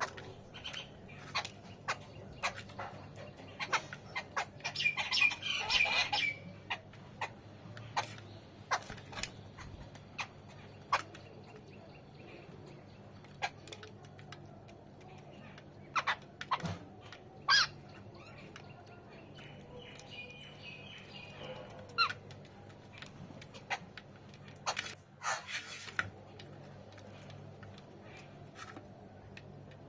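Birds calling in short bursts, mixed with many scattered sharp clicks and taps, over a low steady hum. The calls are busiest about five seconds in and again past the twenty-second mark.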